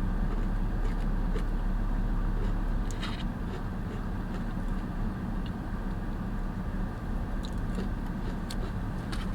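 Steady low hum of an idling car engine, with a few faint short clicks from eating.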